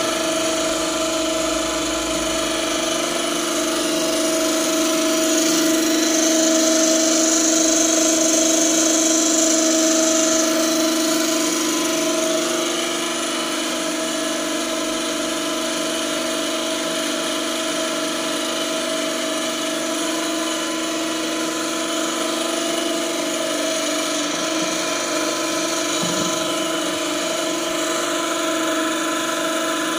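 Filter press feed pump and its electric motor running steadily with a humming whine. A higher hiss joins for a few seconds near the start.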